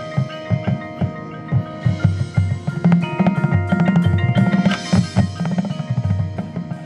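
Percussion ensemble playing: drums strike a rhythm under held notes from pitched mallet percussion.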